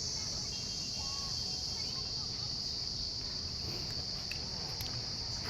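Steady, high shrill insect chorus with no pauses, over a low rumble.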